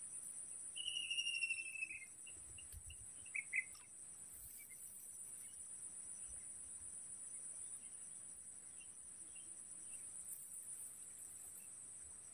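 Steady high-pitched chorus of crickets or similar insects. About a second in, a bird gives a short falling whistle, then a couple of brief chirps a little later.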